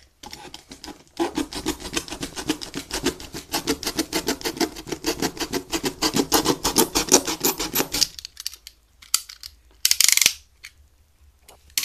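Yellow snap-off utility knife sawing through corrugated cardboard along a box seam: a quick, even run of rasping strokes that stops about eight seconds in. About two seconds later comes one short, loud scrape.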